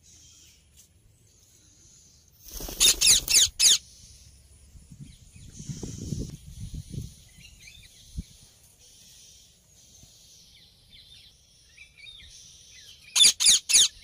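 Indian ringneck parakeets screeching in two loud bursts of four or five quick harsh calls, a few seconds in and again near the end. In between there is a muffled low sound and faint chirping over a steady high hiss.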